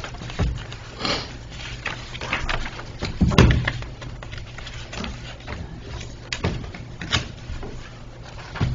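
Sheets of paper rustling and being handled, with scattered knocks and bumps on the desk picked up by the desk microphones. The loudest bump comes about three and a half seconds in.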